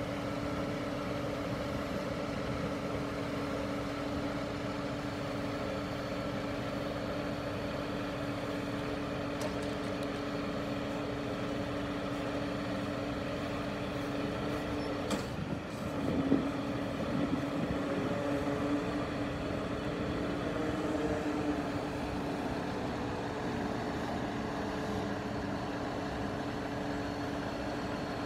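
Scania R124 truck's diesel engine running steadily, driving the hydraulics of its loader crane as the boom unfolds and extends. A knock about fifteen seconds in, after which the hum grows louder and wavers for several seconds as the crane works, then settles back.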